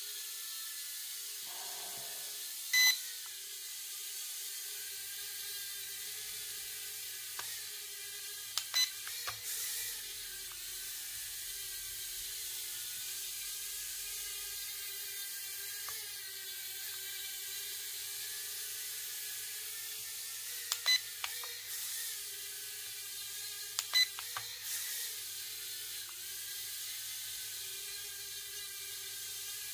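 Holy Stone HS210 toy quadcopter hovering: a steady whine from its tiny motors and propellers that wavers slightly in pitch. Short electronic beeps come several times, some in quick pairs.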